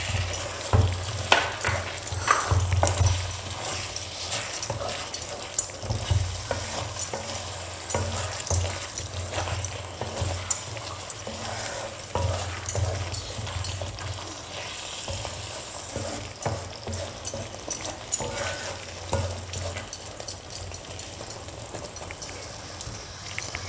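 A spoon stirring and scraping through thick chicken curry in a pan, with irregular clicks of the utensil against the pan over a low sizzle from the simmering gravy.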